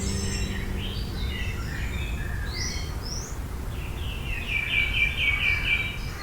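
Several songbirds chirping and calling in short, varied notes, ending in a quick run of about seven repeated bright notes, over a steady low background noise.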